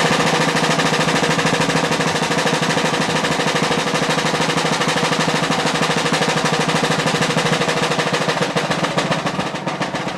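Colonial-style rope-tension field drums playing a fast, continuous roll cadence, a dense rattle of strokes that eases off slightly near the end.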